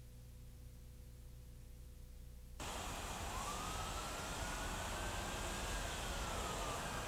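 Low hum with a faint steady whine, then about two and a half seconds in a loud, even tape hiss from the camera's sound track cuts in abruptly. Under the hiss a faint tone rises slowly and falls again, like a distant siren.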